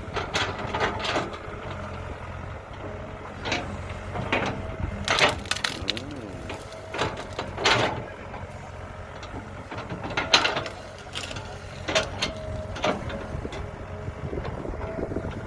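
Kobelco 07 hydraulic excavator's diesel engine running steadily under load, with repeated knocks, scrapes and crunches as the bucket digs and moves earth.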